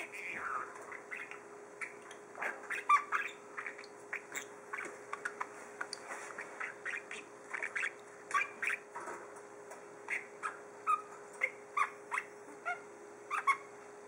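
Budgerigar chattering: an irregular stream of short squawks and chirps, many sliding up or down in pitch, with a faint steady hum underneath.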